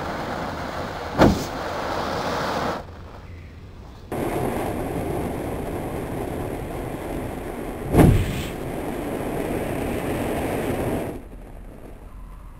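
Black powder burning in a hole in the ground, spurting sparks with a steady rushing hiss, broken by a sharp pop about a second in and a louder bang about eight seconds in. The hiss cuts out briefly near three seconds and dies down near eleven seconds.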